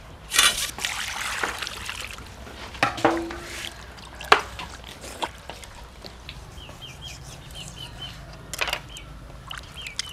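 Water splashing and sloshing in a steel basin as whole plucked chickens are rinsed by hand, loudest in the first second or so, with a few sharp knocks of the birds against the metal. A run of faint, quick high chirps in the second half.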